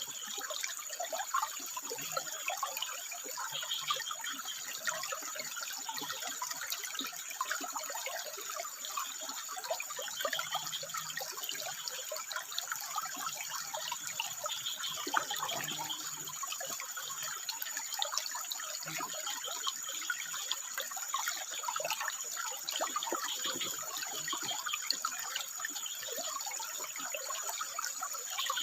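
Water trickling and splashing over rocks in a dense crackle, with faint calls, taken for frogs, now and then, and a thin steady high whine underneath.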